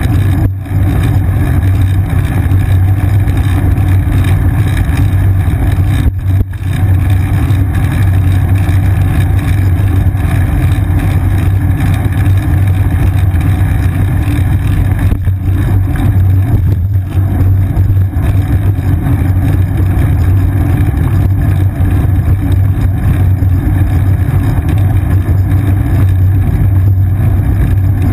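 Steady, loud low rumble of a moving bicycle heard through a seat-mounted action camera: wind on the camera and road vibration through the mount. It dips briefly about half a second in and again around six seconds.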